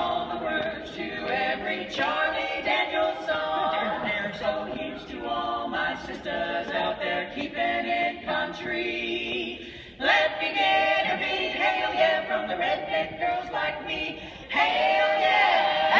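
Women's barbershop quartet singing a cappella in four-part harmony, with a short break about ten seconds in and a louder phrase near the end.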